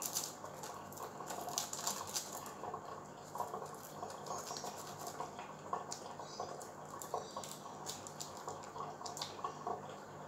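Small irregular clicks and scratches of a paring knife cutting along a raw prawn's shell to peel and devein it, over a faint steady hum.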